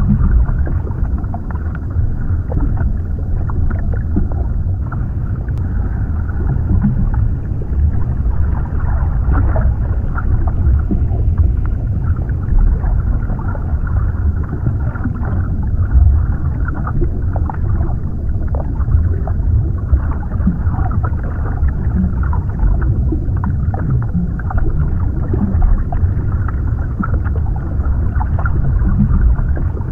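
Underwater ambience: a steady low, muffled rumble of water with many small scattered clicks and crackles.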